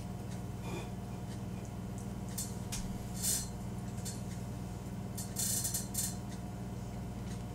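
Quiet sounds of eating with a fork from a plate: a few short, faint clicks and smacks, a small cluster of them about five to six seconds in, over a steady low hum.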